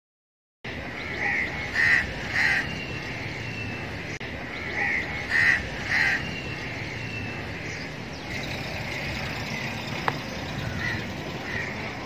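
Crows cawing: a run of three caws about a second in and another run of three around five seconds in, with fainter calls later, over a steady low background rumble.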